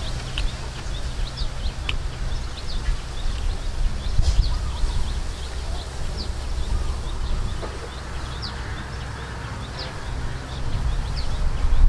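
Small birds chirping in short, high chirps about once a second, over a steady low rumble.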